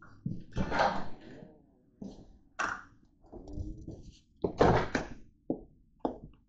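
A few thunks and knocks, then footsteps on a hard floor at a walking pace, about two steps a second, near the end.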